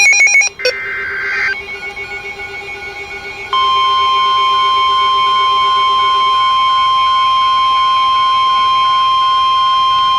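Emergency alert broadcast for a severe thunderstorm warning: a short burst of warbling SAME data tones, then about three and a half seconds in, the steady 1050 Hz weather-radio warning alarm tone comes on loud and holds. Fainter pulsing beeps sound beneath it.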